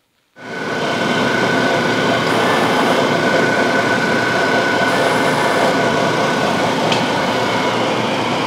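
Large stationary disc sander running steadily, with a constant whine over the machine noise; the sound cuts in abruptly about half a second in.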